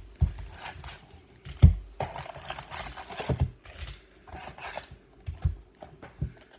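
Trading-card packs being pulled out of a cardboard box and set down on a table: irregular knocks and taps with light rustling in between. The loudest knock comes about one and a half seconds in.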